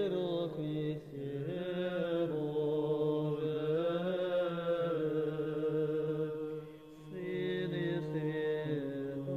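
Male monastic choir singing Orthodox liturgical chant in sustained, slowly shifting chords, with a short break between phrases about seven seconds in.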